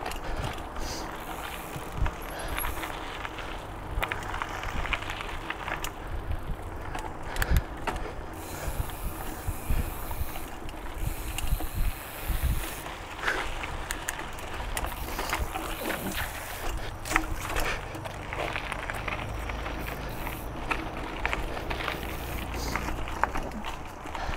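Mountain bike (Kona Lava Dome) ridden along a dirt trail: steady tyre noise with frequent clicks and knocks from the chain and frame over bumps. Wind rumbles on the microphone throughout.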